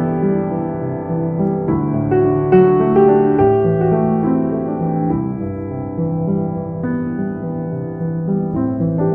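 Background piano music: a slow, gentle piano piece with struck notes and held chords.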